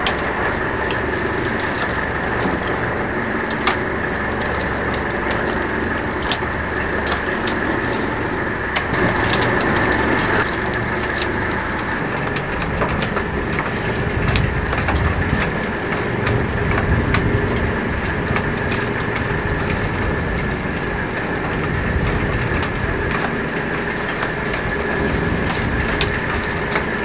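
Fishing boat's engine running steadily under way, with a constant noise of water and wind and a few faint clicks.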